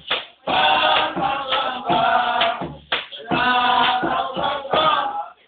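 A group of voices chanting or singing together in loud phrases of a second or two with short breaks between them, fading out near the end; heard through a phone's tinny, muffled recording.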